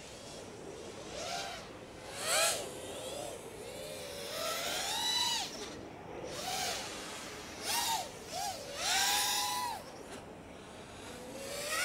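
5-inch FPV racing quadcopter with DYS 2306 2500 kV brushless motors whining in flight. The pitch rises and falls in repeated swells as the throttle changes, the loudest near the middle and toward the end.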